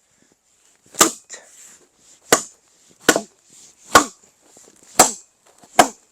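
Axe striking a firewood log six times, about once a second, each blow a sharp crack. The log does not split because of a knot in the wood.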